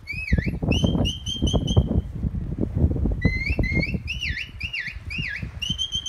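Shepherd's whistle commands to a working sheepdog. A dipping swoop is followed by a run of quick notes on one pitch, then several dipping swoops in a row, and another run of quick notes near the end. Wind rumbles on the microphone underneath.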